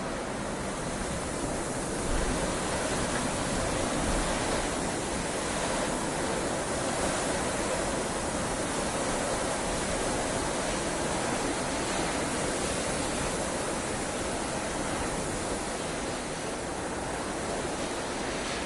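Blizzard wind blowing steadily: a dense, even rush of noise with gentle swells in strength.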